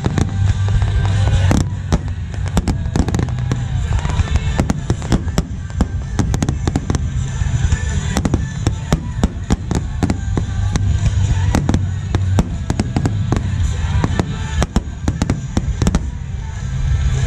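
Fireworks finale: a dense, irregular barrage of aerial shells bursting, many sharp bangs a second, over a steady low rumble.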